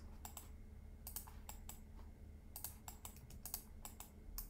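Faint, irregular clicking of computer keys, about twenty short clicks, some in quick pairs, over a steady low hum.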